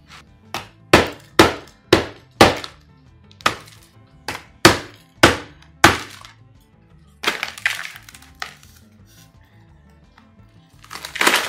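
Small hammer striking a block of ice frozen in a plastic container, about ten sharp cracking blows over the first six seconds, chipping the ice away to free a flashlight frozen inside. Then lighter knocks and clatter of ice as the container is handled.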